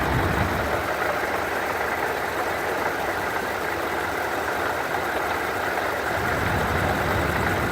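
Car engine idling with a steady grinding rattle from its supercharger that sounds like marbles inside it.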